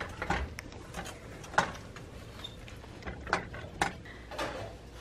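A spatula scraping and tapping against a frying pan while stirring scrambled eggs: a few separate light knocks and scrapes, spread out over several seconds.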